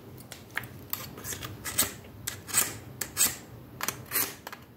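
Scissor blade drawn through a handheld knife-and-scissors sharpener in about five short rasping strokes, sharpening the scissors.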